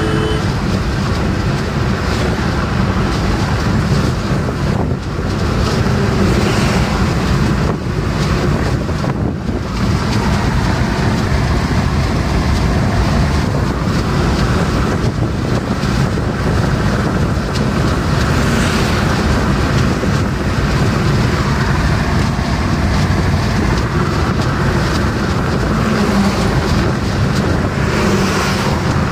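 Steady road, tyre and wind noise of a car cruising at highway speed, heard from inside the cabin. It swells briefly near the end as the car passes a truck.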